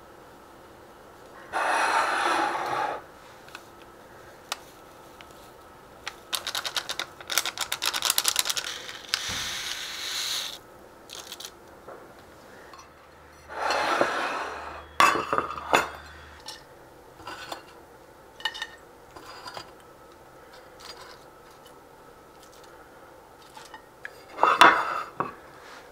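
Intermittent kitchen handling sounds: a spoon and dishes clinking and scraping, with a few short bursts of rustling and, partway through, a quick run of rattling ticks.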